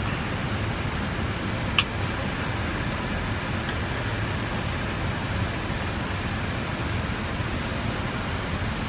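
Steady rushing noise of an Airbus A319 in flight, heard inside the cockpit, with a single sharp click about two seconds in.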